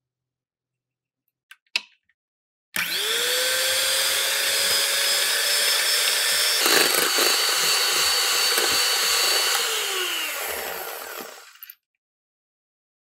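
Electric hand mixer whipping heavy cream to soft peaks in a glass bowl. Its motor starts about three seconds in with a rising whine, runs steadily, then winds down and stops near the end.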